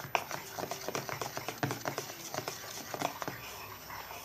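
A spoon stirring a wet glue-and-detergent slime mixture in a bowl: irregular clicks and scrapes of the spoon against the bowl, several a second.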